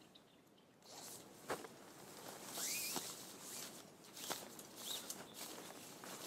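Footsteps and rustling, with scattered light clicks and a louder scraping rustle about halfway through.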